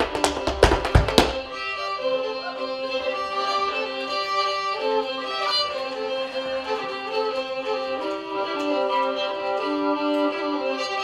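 Sharp tap-dance steps on a wooden board for about the first second, then a slow bowed fiddle melody of long held notes while the taps stop.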